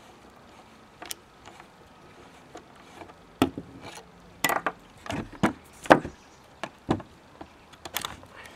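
Irregular knocks and clicks of a screwdriver and small metal parts against the wooden stock and table as a screw is taken out of an Original Model 50 air rifle during dismantling. They are sparse at first and louder and more frequent from about three and a half seconds in.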